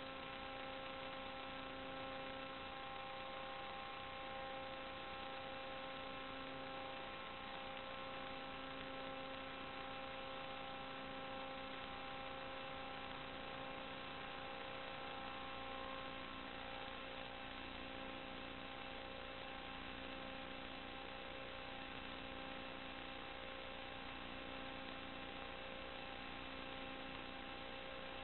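Steady electrical hum and hiss with several constant tones, from the audio channel of an analog FPV video link. About halfway through, some of the higher tones fade and a low rumble comes up.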